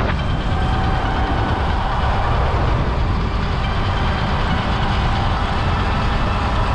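Wind buffeting the microphone while riding a Sur-Ron X electric dirt bike at speed, a steady rumbling rush, with a faint thin motor whine that rises slightly in pitch.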